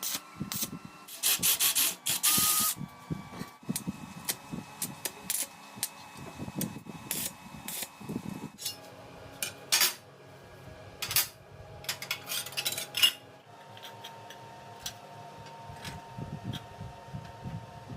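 Workshop handling sounds: scattered knocks and clicks of tools and parts, with two loud bursts of scraping or rubbing in the first few seconds.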